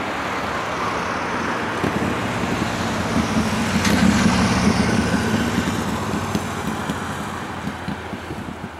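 A vehicle passing close by, unseen: a steady mechanical rumble with a low hum swells to its loudest about four seconds in, then fades as a high whine falls in pitch.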